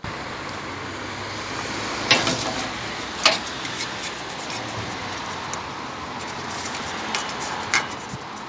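Steady road traffic noise, with three sharp knocks or clacks about two, three and eight seconds in.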